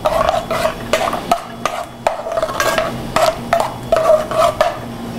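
A metal spoon scraping and clinking around an aluminium saucepan as cream is stirred into a white sauce, in a quick, uneven series of strokes, about two or three a second.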